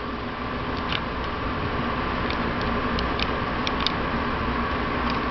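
HO-scale model freight cars rolling past with a steady rumble, their wheels giving irregular light clicks over the track joints.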